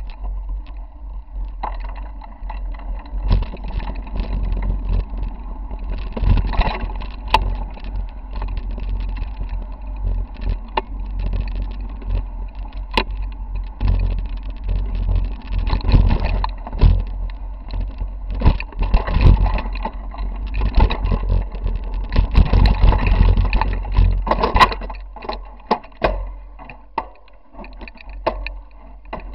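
Mountain bike riding over rocky dirt singletrack, heard through a handlebar-mounted camera: a steady low rumble of frame and tyre vibration, with frequent sharp clatters and knocks as the bike jolts over rocks.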